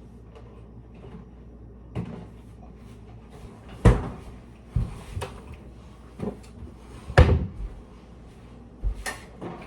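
A series of knocks and thuds from things being handled in a kitchen, about seven in all, the loudest about four and seven seconds in.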